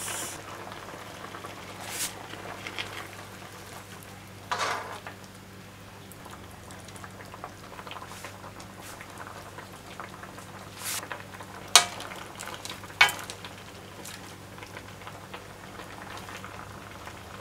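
Sukiyaki broth of soy sauce, sake and sugar simmering and bubbling softly in a wide metal pan under napa cabbage and tofu. A few sharp clicks and knocks come as the tofu blocks are set into the pan.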